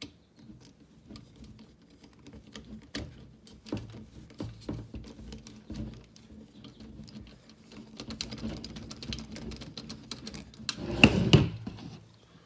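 Small screws being turned in to fix plastic holders to the frame of a TV tray cart: irregular light clicks and taps, with a louder clatter of knocks near the end.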